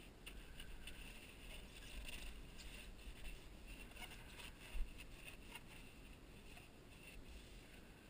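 Faint rustling and rubbing of paper towel as furnace parts are wiped clean, with small scrapes and clicks and one dull thump a little before five seconds in.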